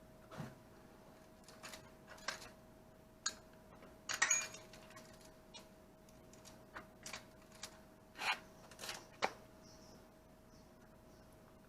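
Scattered metallic clinks and knocks of tools and parts being handled during motorcycle gearbox work, about a dozen in all, the loudest a short rattling cluster about four seconds in. A faint steady hum runs underneath.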